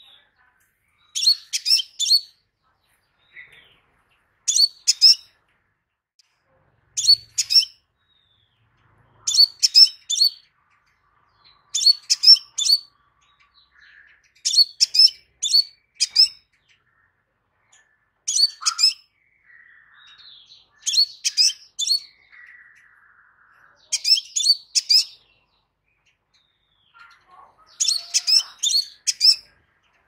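Crimson sunbird (sepah raja) calling: short bursts of rapid, sharp, high-pitched chirps, about one burst every two to three seconds.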